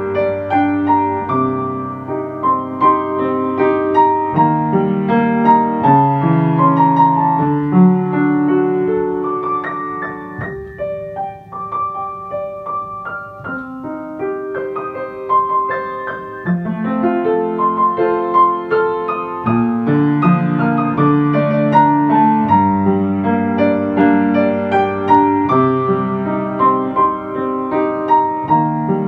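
Mellow instrumental keyboard music: piano or electric piano chords over held bass notes, thinning out and growing softer for a few seconds in the middle.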